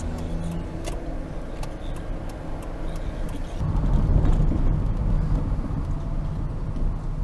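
Car road and engine noise heard from inside the cabin while driving at low town speed, a steady low rumble. There are a few light clicks in the first three seconds, and the rumble grows louder about three and a half seconds in.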